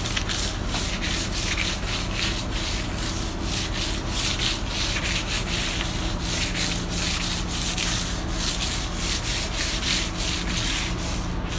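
Teak handrail hand-sanded with 120-grit sandpaper, the coarse first sanding before varnish: steady back-and-forth scratchy strokes of paper on wood, about two to three a second.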